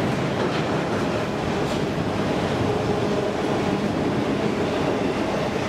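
Freight train of enclosed autorack cars passing at speed: a steady rumble and rattle of steel wheels on the rails, with the occasional click.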